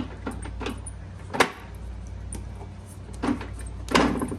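Irregular clunks and clicks from a 2009 Suzuki Boulevard C50's shaft final drive as the bike is rocked forward and back in first gear, the loudest about one and a half seconds in. It is the grinding that the owner takes for worn splines that no longer engage, so the bike won't move forward in gear.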